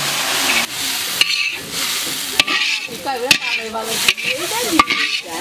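Hot fried spices from a large kadai poured into a pot of lotus-seed dal, hissing and sizzling as they hit the liquid. A metal ladle then scrapes and knocks against the kadai several times as the last of the spices are scraped out.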